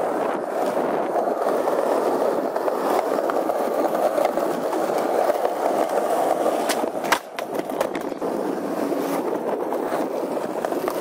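Skateboard wheels rolling steadily over rough concrete. About seven seconds in there is a sharp clack of the board, the rolling briefly drops away, then it resumes.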